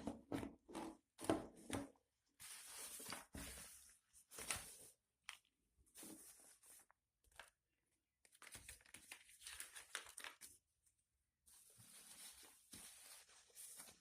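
Faint rustling, tearing and crinkling of a gaming headphone's packaging as it is unboxed, in irregular bursts with short pauses, with a few sharp clicks near the start.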